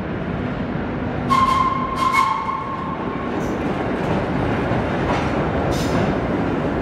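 Vintage 1930s R1-9 subway cars running into an underground station: a steady loud rumble with sharp clacks from the wheels over rail joints, and a steady high squeal for about two seconds starting a second in.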